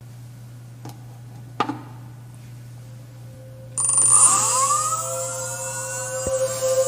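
Faint steady hum with two small clicks, then about four seconds in ambient electronic music starts abruptly: several held tones sweep up in pitch and settle into a sustained chord.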